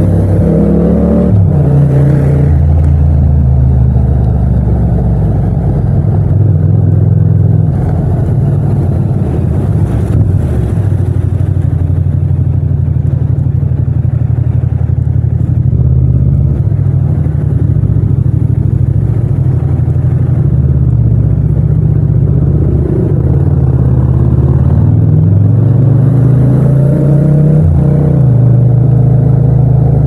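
Yamaha MT-07's 689 cc parallel-twin engine heard from the rider's seat, running at low revs. The revs rise and fall briefly near the start and climb again near the end.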